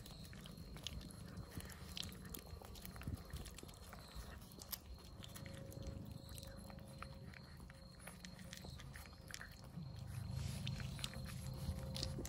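Stray cats eating: small, irregular crunching clicks as they chew dry kibble, with licking at a squeeze-tube cat treat, over a low background rumble.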